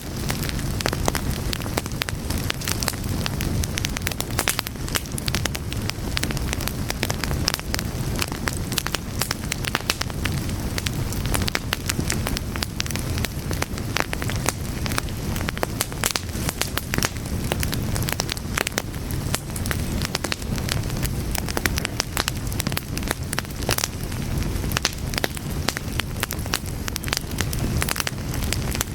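Wood fire burning steadily, with dense crackling and popping over a low rumble of the flames.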